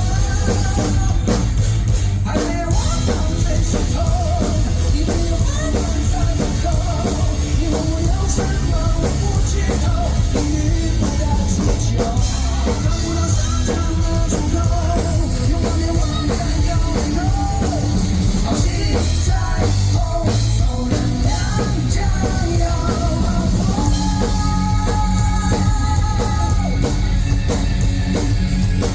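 Live rock band playing loudly, with a drum kit and electric guitar carrying a long stretch without sung lyrics.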